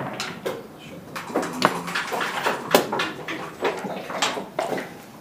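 A run of sharp clicks and clacks from backgammon checkers being picked up and set down on the board, with the tap of the game clock being pressed.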